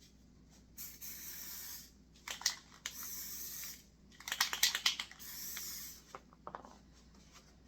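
Aerosol can of sand-colour camouflage spray paint sprayed in three short hisses of under a second each, with clusters of sharp clicks and rattles between them.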